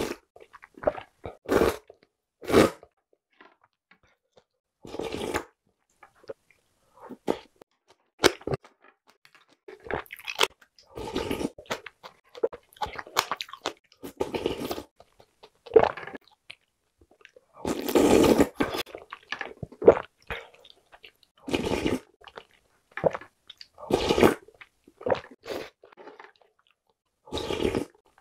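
Slurping spicy noodle soup, broth and noodles, from a ladle-spoon, with chewing in between. It comes in short separate slurps of up to about a second each, with the longest and loudest about two-thirds of the way through.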